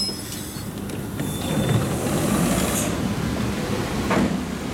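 Inside an EP2D electric train carriage: steady mechanical rumble with occasional clicks as the train comes to a standstill, the braking squeal having died away.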